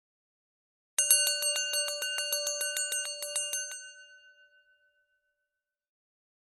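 A small metal bell rung rapidly, about seven strikes a second, in a bright, high-pitched ring. It starts about a second in, stops after nearly three seconds and rings out as it fades.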